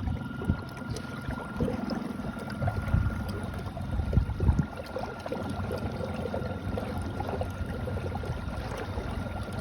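Electric trolling motor running on speed 5, a steady high whine over water rushing and splashing along a kayak's hull, with irregular low thumps.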